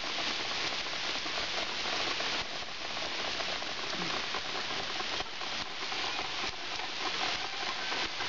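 Heavy rain falling in a storm: a steady, dense hiss of many drops.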